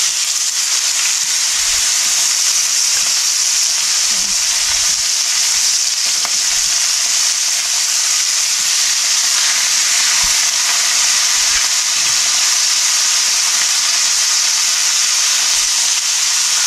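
Seasoned ribeye steaks searing in olive oil in a smoking-hot cast iron skillet: a steady, loud sizzle.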